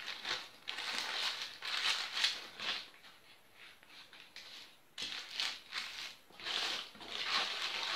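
Paper rustling and crinkling as it is pulled open by hand from around a crepe roll. It comes in bursts, with a quieter lull in the middle.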